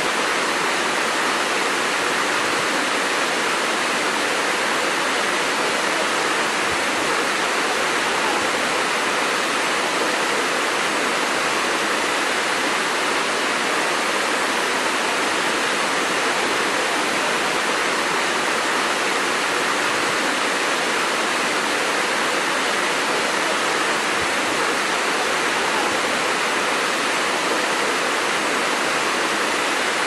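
Waterfall cascading over rocks: a steady, even rush of falling water.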